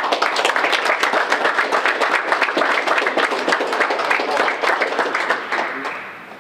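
People applauding: a dense run of hand claps that tapers off near the end.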